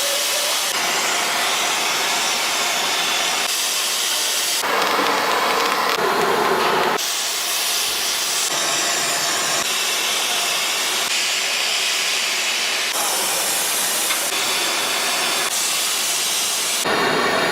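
Loud hissing, rushing factory work noise, cut abruptly into a new sound every one to two seconds.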